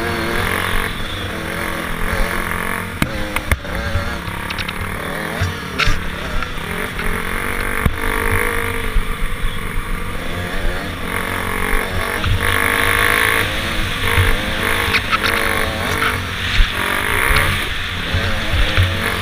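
Dirt bike engine revving up and down as the bike is ridden over a dirt track, with wind buffeting the helmet camera's microphone.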